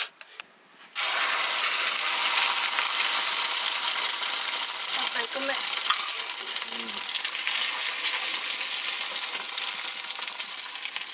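Food dropped into hot oil, sizzling and crackling. The sizzle starts suddenly about a second in and eases off slightly toward the end.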